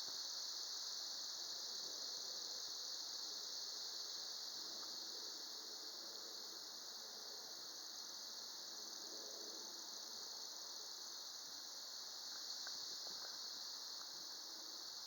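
Steady, high-pitched chorus of insects, unbroken for the whole stretch, over a faint low rustle of air.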